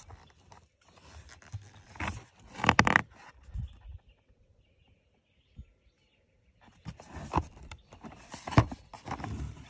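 A cardboard box of shotgun shells being handled and turned in the hand, with rustling and scraping in two bouts: one about two seconds in, and another from about seven seconds. It is almost quiet in between.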